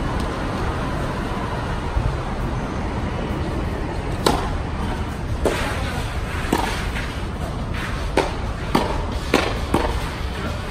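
Tennis rackets hitting the ball in a doubles rally: a string of sharp pops starting about four seconds in, roughly a second apart and closer together near the end as the players volley at the net. There is steady background noise throughout.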